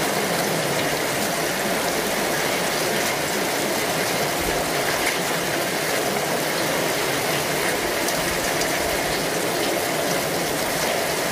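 Steady, unbroken rushing sound of water, like heavy rain or a gushing stream.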